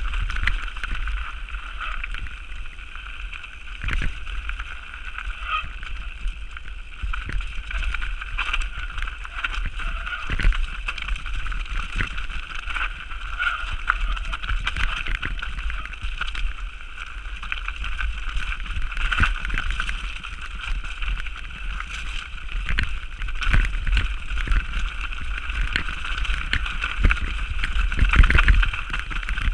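Mountain bike descending a rough, rocky trail: wind buffeting the action-camera microphone, tyre noise on the loose ground, and frequent knocks and rattles from the bike over bumps, the biggest hit near the end.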